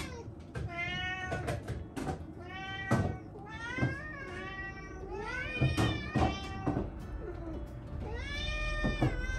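House cats meowing over and over, a run of pitched calls that rise and fall, some overlapping, with a few short knocks in between.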